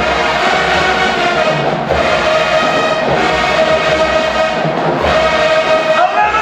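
College marching band brass section playing loud held chords, with a few heavy hits under them.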